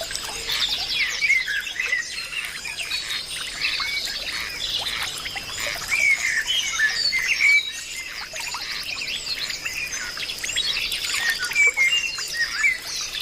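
A dense chorus of many birds chirping and whistling at once, over a steady high-pitched drone.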